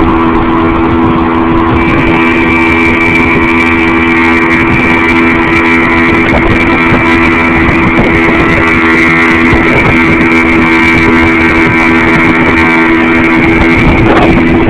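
Motorboat engine running at a steady speed, holding one constant pitch, with water and wind noise underneath.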